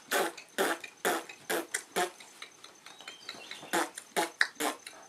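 A man's voice making short, breathy, percussive mouth sounds in a rough rhythm, about two a second, with a pause in the middle.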